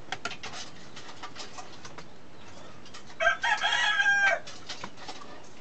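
A rooster crows once, a call of a bit over a second starting about three seconds in, loud over the room. Light clicks of shells and utensils on the table come and go around it.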